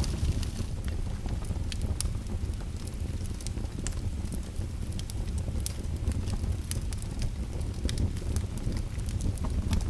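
Fire crackling: irregular sharp pops and snaps, several a second, over a steady low rumble.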